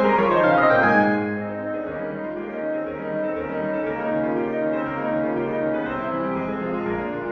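Background piano music playing held notes and chords. It is a little louder in the first second or so.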